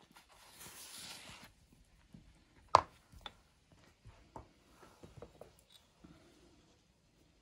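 A short rustle, then a sharp knock a little under three seconds in, followed by scattered lighter taps and clicks of things being handled.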